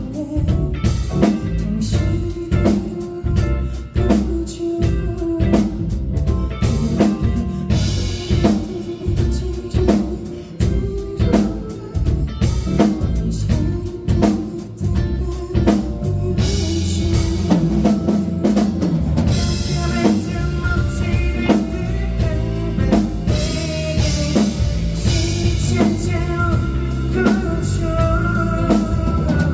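A band playing rock music: a busy drum kit with bass and guitars. The music fills out about halfway through, and a sung vocal line comes in.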